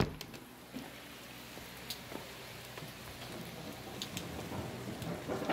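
Steady rain falling during a thunderstorm, an even hiss with occasional sharper ticks of drops close by, swelling slightly near the end.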